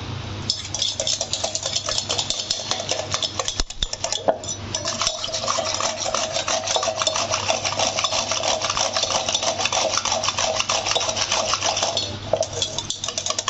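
Wire whisk beating chana sattu (roasted gram flour) into water in a steel bowl: a rapid, continuous clinking and swishing of the wires against the metal bowl, with a brief lull about four seconds in, dying away near the end.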